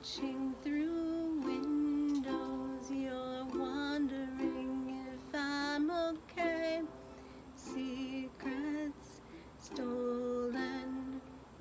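A woman singing a slow song, accompanying herself on ukulele.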